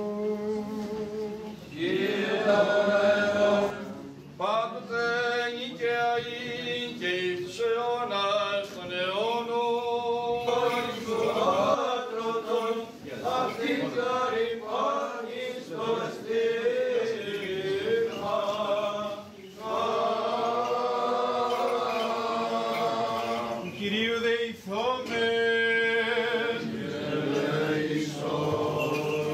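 Byzantine chant: voices singing a Greek Orthodox hymn in long phrases over a steady held drone note, with brief pauses between phrases.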